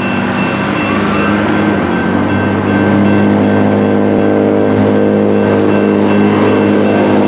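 Railroad crossing signals activating: the General Signals Type 2 electronic crossing bells ring as a steady, repeating high tone. Beneath them is road traffic and a low, steady hum that grows louder about three seconds in.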